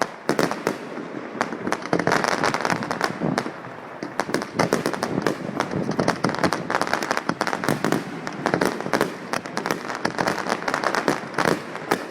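Fireworks going off in rapid succession: a dense, continuous crackle of many sharp bangs a second.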